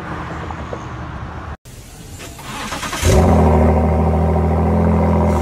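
Ford GT's twin-turbo 3.5-litre V6 starting up about three seconds in, catching with a quick rise and settling into a steady, loud idle. Before it, a fainter sound of a Ford GT driving off, which cuts off abruptly after about a second and a half.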